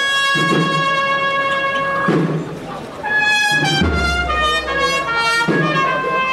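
Brass band playing a slow Holy Week processional march: trumpets holding long notes over a low beat that comes about every second and a half, with a short break between phrases about two and a half seconds in.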